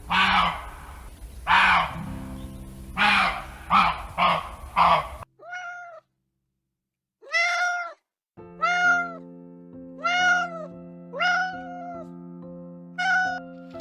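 A dog barks about five times over background music. After a short pause, a cat meows six times, each meow a pitched call that falls away at the end.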